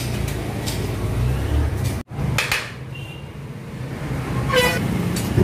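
Steady low rumble of street and shop background noise, with a few sharp knocks and clatters and a short squeak near the end. The sound drops out for a moment about two seconds in.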